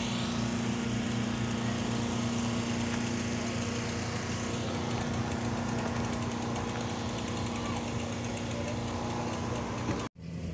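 A small engine running steadily, a low, even hum that cuts off suddenly near the end.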